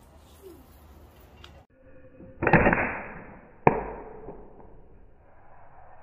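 Homemade 2x4 slingshot rifle with a mechanical trigger release being fired: two sharp cracks, about two and a half and nearly four seconds in, each trailing off over about a second.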